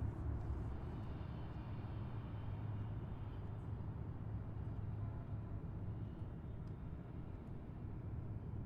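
A car driving steadily at highway speed: a continuous low rumble of road and engine noise, with little high-pitched sound.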